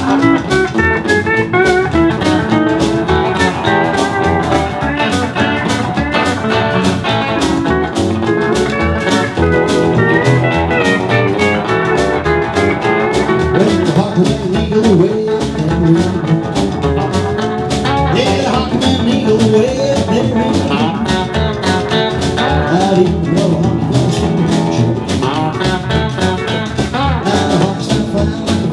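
Live rockabilly band playing with a steady beat: hollow-body electric guitar over upright bass and drums.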